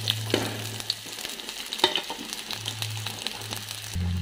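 Sliced red onions sizzling and crackling as they start to fry in hot mustard oil in a kadai, with a few sharp knocks, the loudest about two seconds in, over a low steady hum.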